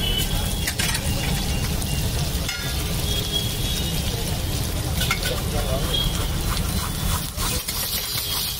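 Eggs sizzling as they fry on a large flat steel griddle, with a few short clicks and scrapes as the cook works over them. A steady low rumble runs underneath.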